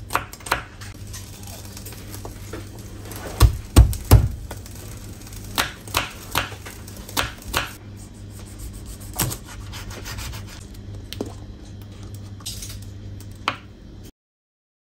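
Kitchen knife on a wooden cutting board: three heavy thumps about three and a half seconds in as garlic cloves are smashed with the blade, then a run of crisp chopping taps as the garlic is minced, and softer taps and rubbing later on. The sound cuts off suddenly near the end.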